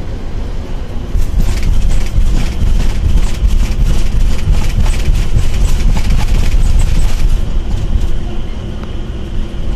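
Vehicle driving on a highway: a steady, loud low rumble of road and engine noise, with a rapid clatter over it that grows louder about a second in and eases off near the end.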